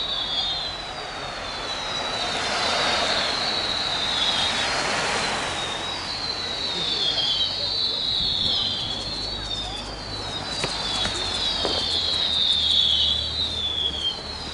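Fireworks going off: a string of high whistles, each falling in pitch and repeating one after another, with crackling pops from about nine to twelve seconds in.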